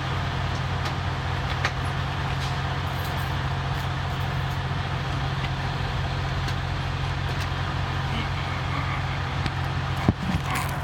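An engine idling steadily, a low even drone, with a sharp click about ten seconds in.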